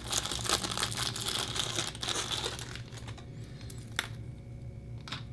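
Small clear plastic parts bag crinkling as a wire harness is pulled out of it. The crinkling dies down about three seconds in, and two light clicks follow near the end.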